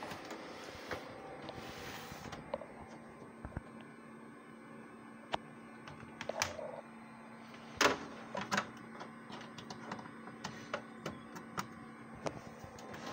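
Handling noise: scattered clicks and knocks as a small CRT television and its power cord are moved about, then a plug pushed into a wall outlet near the end, over a steady low hum.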